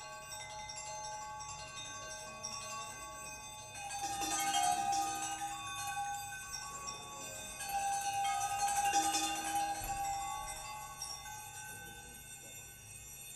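Live improvised electronic music: layered, sustained, bell-like tones, with two louder swells of bright, shimmering metallic sound about four and nine seconds in.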